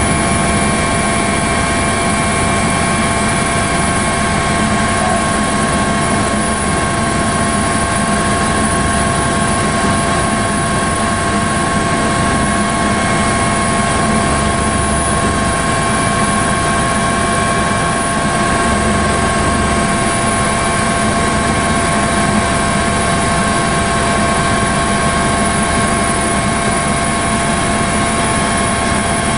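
Helicopter engine and rotor noise picked up on board: a loud, even rush with several steady whining tones over it, unchanging throughout.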